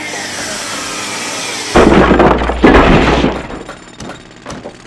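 Channel-intro sound effects: a steady hissing whoosh, then two loud impacts about a second apart, each trailing off with scattered small clicks and rattles.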